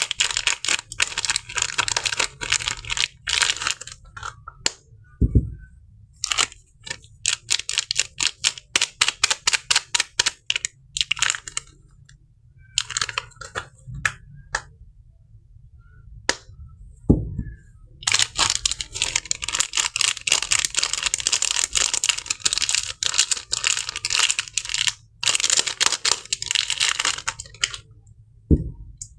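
Crisp paper soap wrapping crinkled and torn close up, in long stretches of dense crackling broken by short pauses, with a few soft thuds.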